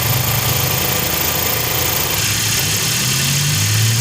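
Suzuki K6A three-cylinder engine idling steadily while warming up, its idle note dipping slightly near the end.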